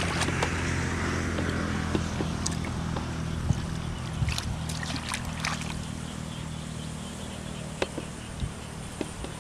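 Hands sloshing and groping in shallow muddy water, with scattered small splashes, over a steady low engine hum.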